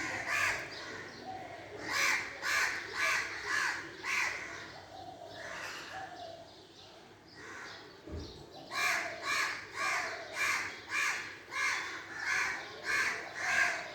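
Crows cawing in runs of short, harsh repeated calls: a few around two to four seconds in, then a longer string of about a dozen at roughly two calls a second from about nine seconds in.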